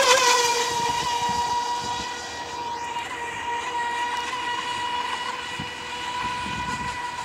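FT011 RC racing boat's brushless motor running at a steady high-pitched whine, loudest at the start and easing off slightly as the boat moves away.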